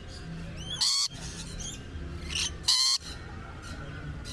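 Rainbow lorikeets screeching: two short, harsh shrieks about two seconds apart, with softer chirps between.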